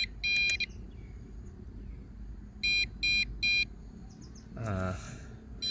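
Short, high electronic beeps from the JJRC Epik X5 Pro drone set: one beep just after the start, then three in a row about half a second apart midway through.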